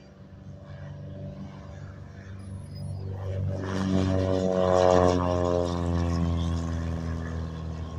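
Piper PA-24-250 Comanche's six-cylinder Lycoming engine and propeller at full takeoff power. The sound grows louder as the plane rolls past and lifts off, is loudest about five seconds in, and drops in pitch as it goes by.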